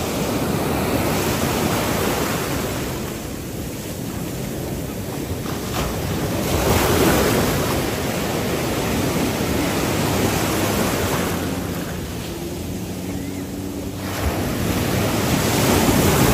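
Surf breaking and washing through shallow water, swelling in two louder surges, with wind buffeting the microphone. In the second half a jet ski engine hums faintly underneath.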